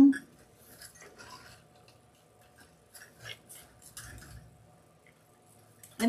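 Faint, scattered light clicks and rustles of a metal wire wreath frame and a framed sign being handled and wired together, with one sharper click about three seconds in.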